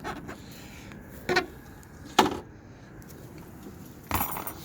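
Plastic retaining clamps being prised off an LED third brake light unit: two sharp clicks about a second apart, then a short clatter near the end.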